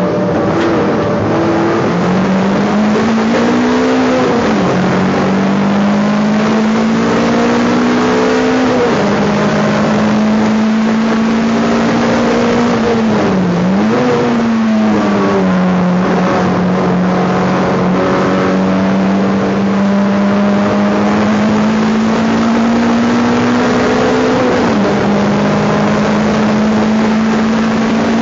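Race car engine running hard at high revs, heard from inside its stripped, roll-caged cabin. The note climbs slowly for several seconds at a time and drops sharply in revs, then recovers, about four times.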